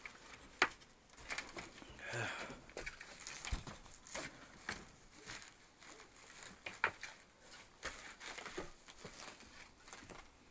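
Footsteps crunching over fire-charred debris and broken wood: scattered, irregular cracks and clicks with a longer scrape about two seconds in.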